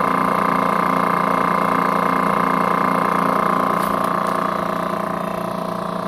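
Refrigerant recovery machine running steadily in recover mode just after start-up, a loud even motor-and-compressor hum. It eases off slightly near the end.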